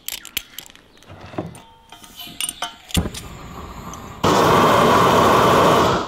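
Gas weed burner (tar-melter torch) lit and burning: a loud, steady rush of flame starts suddenly about four seconds in and cuts off abruptly near the end. Before it come light clicks and knocks from handling the torch, with one sharp click about three seconds in.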